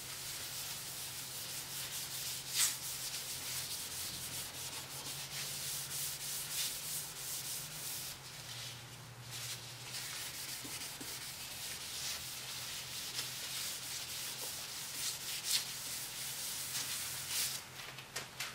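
A P500 abrasive sanding disc rubbing steadily over a plastic headlight lens, with a scratchy hiss and short louder strokes, sanding off yellowing and defects.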